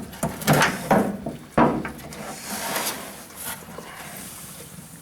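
Wooden board knocking and scraping against the pickup's steel bedside panel as it is worked into position to push out a dent, with a sharp knock about a second and a half in.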